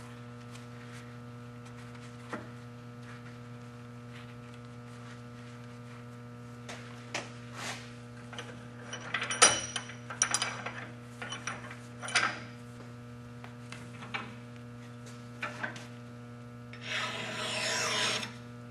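Steady low hum with scattered knocks and scrapes, the loudest about halfway through, as the work is handled. Near the end comes one long rasping stroke of a flat single-cut mill bastard file across the steel bit of an axe held in a vise.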